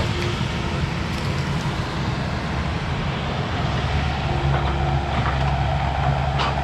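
Diesel engine of a piece of brush-clearing heavy equipment running steadily and working harder from about four seconds in, with a few short sharp cracks.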